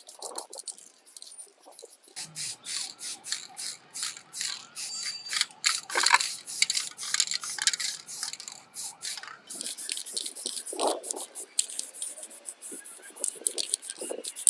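Aerosol spray paint can hissing in many short bursts, a few a second, as metal saw parts are spray-painted.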